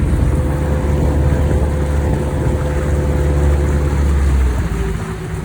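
Tour boat's motor running steadily with a low hum and a steady whine above it, easing off about four and a half seconds in.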